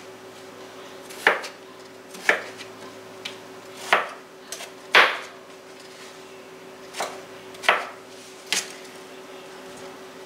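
Chef's knife chopping down through raw russet potato onto a thin cutting mat: about seven separate, irregularly spaced chops, the loudest about five seconds in.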